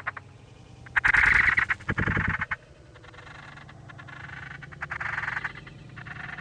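Animal calls in bursts of rapid rasping pulses, the loudest about a second in and another near the end, with a short low pulsing burst about two seconds in.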